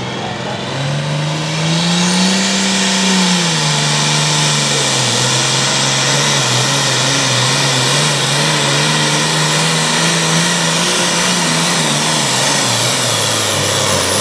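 Classic super stock pulling tractor's turbocharged diesel engine at full throttle hauling a pulling sled down the track. Its pitch climbs in the first couple of seconds, eases back, then holds nearly steady, with a high whine above the engine note.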